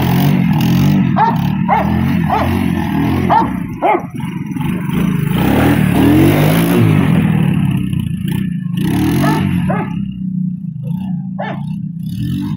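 A dog barking repeatedly, about two barks a second at first and again near the end, over a small ATV engine that runs and revs up and down throughout.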